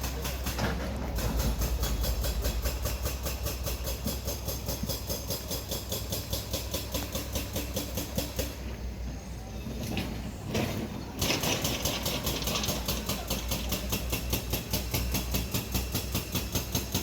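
Rhythmic mechanical clatter, about three knocks a second, over a steady low hum, easing briefly a little past the middle.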